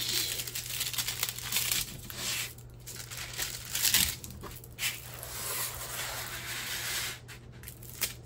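Clear plastic protective film on a diamond painting canvas crinkling and rustling as hands smooth it flat, in irregular swishes, loudest about four seconds in.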